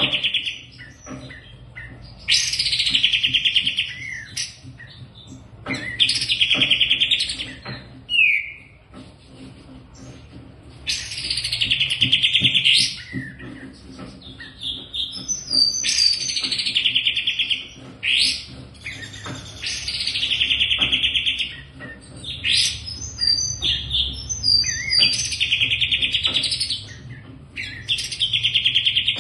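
A songbird singing loud, rapid trilled phrases, each one to two seconds long, repeated every few seconds with short chirps and calls in between.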